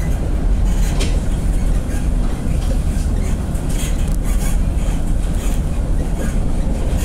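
PCC series 7700 tram running on its rails: a steady rumble with a few sharp clicks.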